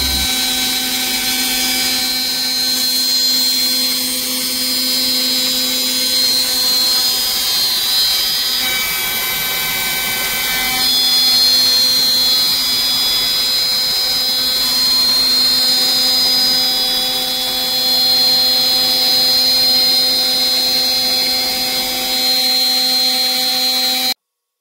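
CNC router spindle milling 6061 aluminium plate with a small end mill: a steady high whine over continuous cutting noise, here running a spring pass, a light repeat finishing cut along the part's profile. The sound cuts off abruptly near the end.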